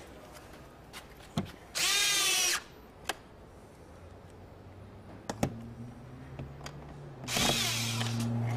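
Cordless drill-driver with a Phillips bit driving screws back into a car door trim panel: a short whir about two seconds in and another near the end, with small clicks of the bit and screws being handled between them.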